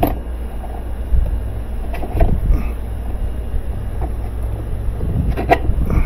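Sharp clicks, three of them with the loudest near the end, from an air hammer and its bolt-tipped extractor bit being worked down into a washing machine agitator's transmission shaft, over a low steady rumble.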